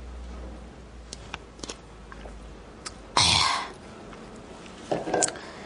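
A person sipping from a small cup, with faint mouth clicks, then one short, loud, forceful breath out through the mouth about three seconds in. A few soft mouth sounds follow near the end.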